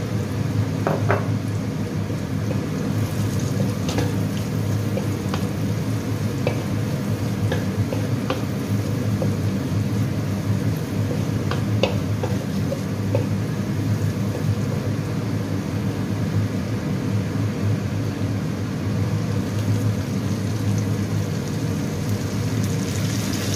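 Chopped garlic and dried shrimp frying in oil in a wok: a steady sizzle over a low hum, with scattered light clicks of a wooden spatula on the pan. Right at the end the sizzle gets louder and brighter as lemongrass, galangal and bay leaves go into the hot oil.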